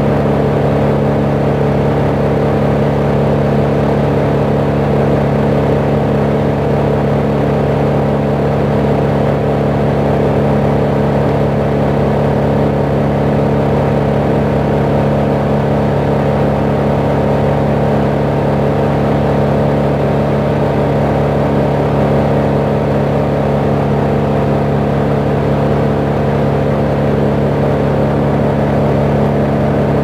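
Truck-mounted boom crane's engine running at a steady speed, a constant unchanging drone.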